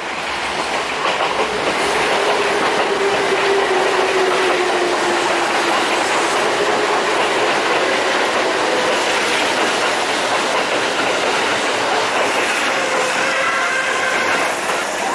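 Kintetsu electric trains, an Urban Liner limited express among them, running through the station at close range: a steady rumble of wheels on rail with clickety-clack over the joints, swelling over the first couple of seconds. A faint, slightly falling whine sounds in the first few seconds.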